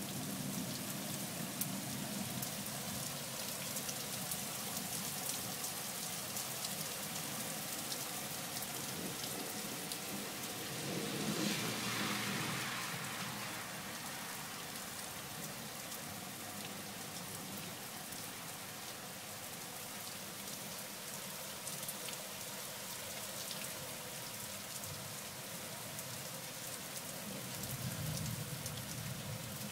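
Steady rain falling on a street and surfaces, with fine patter of drops. About eleven seconds in, a louder swell rises and fades over a couple of seconds, and a low rumble swells briefly near the end.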